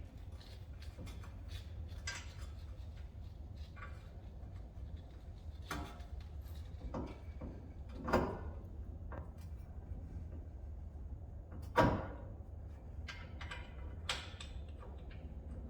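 Scattered clicks and a few sharper knocks of hand-handled metal and plastic parts as a new wheel bearing hub's ABS sensor wire is fed into place, with the loudest knocks about 8 and 12 seconds in. A steady low hum runs underneath.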